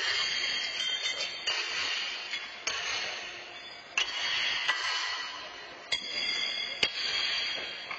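Metal horseshoes being pitched on several courts, clanking sharply as they strike the steel stakes and each other: about seven separate clanks at uneven intervals, over a steady hiss of hall noise.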